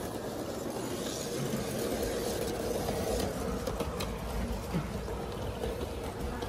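Bachmann large-scale James the Red Engine model train running on G-scale track: a steady hum of the motor and wheels rolling on the rails, with a few light clicks about halfway through.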